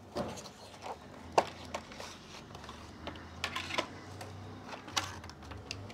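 Paperboard box and clear plastic blister packaging being handled by hand: scattered clicks, crinkles and rustles, the sharpest click about a second and a half in.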